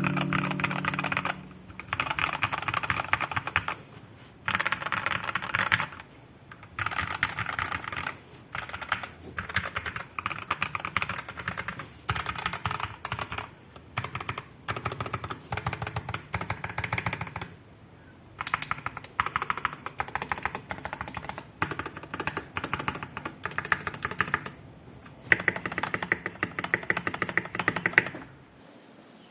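Typing on a KEYCOOL 104 mechanical keyboard with lubed Gateron Milky Yellow linear switches, an aluminium plate, PCB foam and PBT keycaps: fast runs of key presses in bursts of a second or three, with brief pauses between them.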